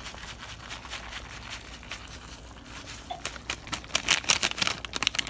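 Foil-lined Maggi soup-mix sachet crinkling as it is tipped and shaken over a pot of simmering soup, loudest in a cluster of crackles from about three and a half seconds in; the soup bubbles softly underneath.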